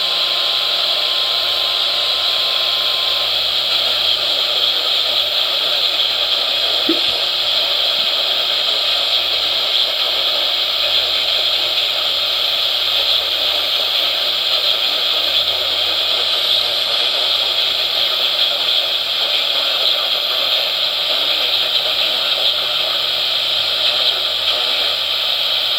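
Radio receiver putting out steady static hiss, even and unbroken, brightest in the upper range. A faint steady tone sits under it and stops about three seconds in.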